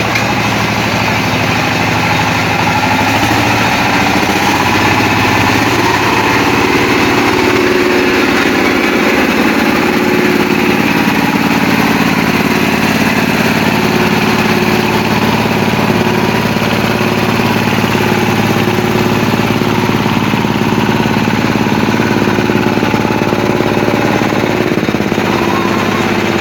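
Combine harvester's diesel engine running steadily and loudly, its pitch shifting slightly in the first several seconds and then holding.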